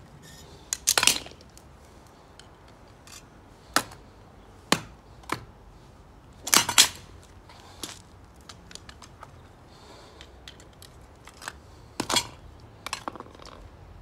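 Steel tongs knocking and clinking against a freshly cast copper ingot and its metal mould as the ingot is gripped, tipped out and set down on paving. There are sharp metallic knocks about a second in, twice around four to five seconds, a close pair near seven seconds and a few more near the end, with light ticking between.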